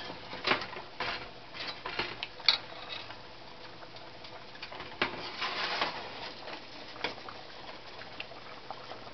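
Pot of dirty rice boiling on the stove, with irregular light pops and clicks and a louder hissing stretch about five seconds in.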